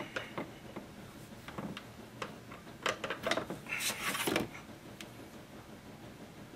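Scattered small clicks, taps and rustles of hands handling a plastic wiring connector and its wires on an electric pump motor, busiest and loudest a few seconds in.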